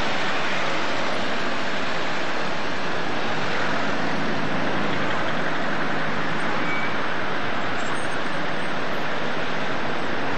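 Steady wash of street traffic mixed with the splashing of a large fountain's water jets, heard on an old home-video recording.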